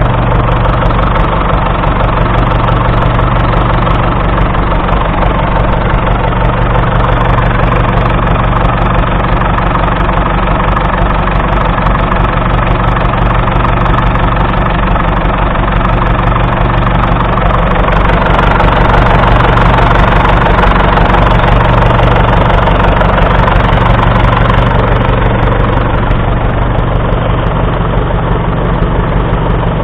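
Perkins P4 four-cylinder diesel in a 1942 Fordson Model N tractor idling steadily, heard close up. It gets a little louder for several seconds about two-thirds of the way through.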